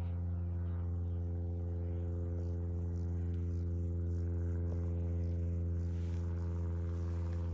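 A steady low mechanical hum with a stack of even overtones, holding one pitch and level throughout, like a motor running at constant speed.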